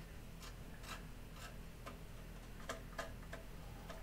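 Faint, uneven light taps and scrapes of a gloved hand spreading adhesive onto the scarf joint of a wooden kayak stringer, about eight in all, a few coming close together near the end.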